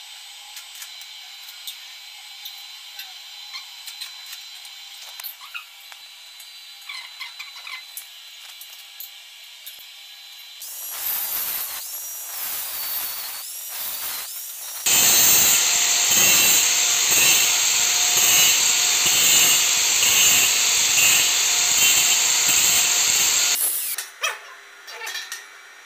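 Handheld angle grinder working stainless steel square pipe. It starts with small handling clicks and knocks, runs unevenly at moderate level from about ten seconds in, then grinds loudly and steadily for about nine seconds with a high, shrill whine. It stops suddenly near the end, leaving a few knocks.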